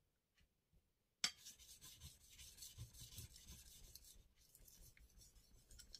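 Deba knife blade stroked over a wet Iwatani Japanese natural whetstone, used on water alone without slurry: faint rubbing scrapes that begin just over a second in, after a silent start.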